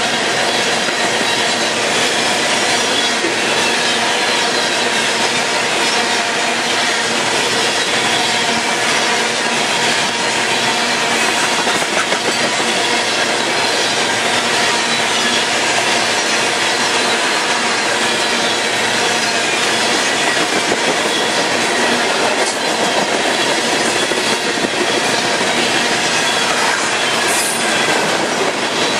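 Steel wheels of a freight train's tank cars rolling past close by: a steady rumble and clatter on the rails, with a thin wheel squeal over it.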